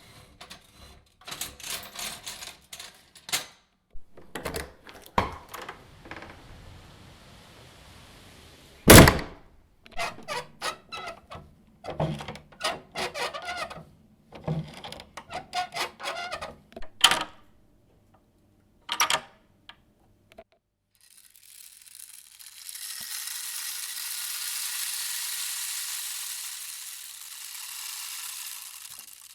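A string of irregular clicks and knocks, with one loud thump about nine seconds in, then a steady hiss with no low end for the last eight seconds or so.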